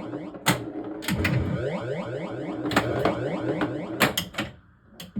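1979 Williams Gorgar pinball machine in play: sharp clacks of the flippers and solenoid-fired bumpers over its sweeping electronic sound effects. The sound drops away briefly near the end, then starts again.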